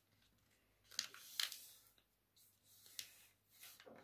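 Sheet of paper rustling and crinkling faintly as it is folded and creased by hand, in a few short scratchy bursts: about a second in, around three seconds, and again near the end.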